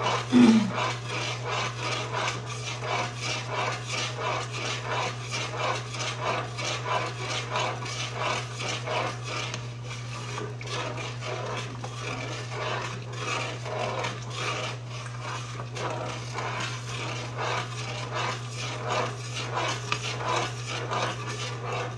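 A utensil scraping around the bottom of a metal cooking pot in steady strokes, about two a second, as a pot of hot coconut milk and condensed milk is stirred. A louder knock against the pot comes about half a second in, and a steady low hum runs underneath.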